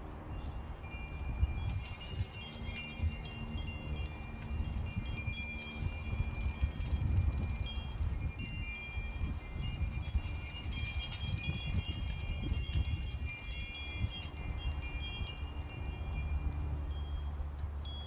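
Two metal-tube wind chimes ringing in a breeze, their bright tones struck and overlapping at irregular moments, busiest through the middle. A low rumble runs underneath.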